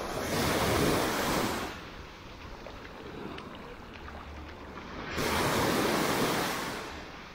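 Small waves breaking and washing up the sand at the shoreline, two swells of surf about five seconds apart.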